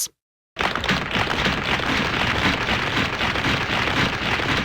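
Rain sound effect: a dense, steady patter of falling rain starting about half a second in, heard as the "tip tap" of drops.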